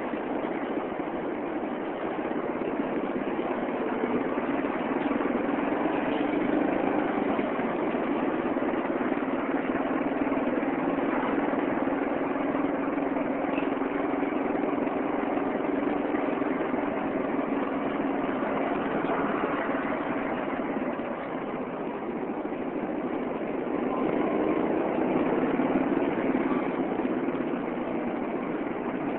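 Vehicle engine running steadily on the move, a low hum under road noise. It eases off briefly about three-quarters of the way through, then picks up again.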